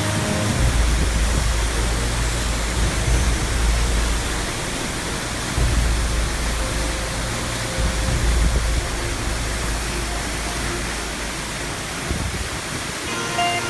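Waterfall rushing: a steady roar of falling water with a deep rumble underneath.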